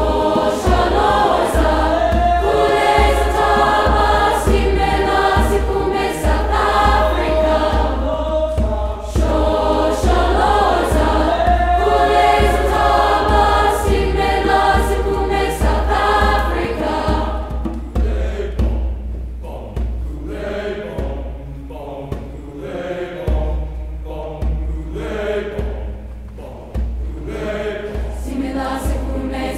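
School choir singing in parts over a steady low pulsing beat, the singing growing softer about two-thirds of the way through.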